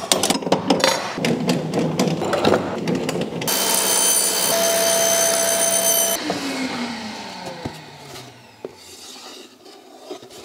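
Table saw trimming the excess veneer off the edges of a veneered plywood panel: handling knocks and clatter first, then the saw runs with a steady whine for a couple of seconds and is switched off, its pitch falling as the blade spins down.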